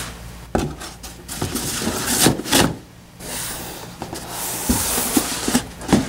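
Packing material being handled in a cardboard shipping box: a foam wrap sheet rustling and cardboard inserts scraping against the box walls, with a few dull knocks as pieces are set down.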